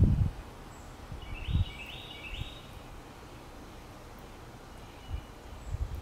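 A songbird calls a short run of three quick chirpy notes about a second and a half in, over steady outdoor background hiss. Short low thumps at the start and again about a second and a half in are the loudest sounds.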